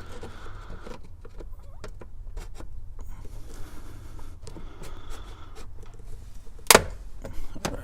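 Flathead screwdriver prying a plastic steering-column cover loose: scattered small clicks and scrapes, then one sharp snap about two-thirds of the way through as a clip lets go.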